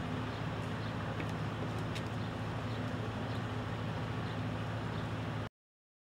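A steady low mechanical hum, like an engine running, over outdoor background noise with a few faint ticks; the sound cuts off abruptly to silence about five and a half seconds in.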